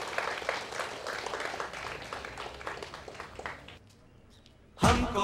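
Audience applauding, the clapping thinning out and fading over about three and a half seconds. After a brief near-silent gap, music starts abruptly and loudly near the end.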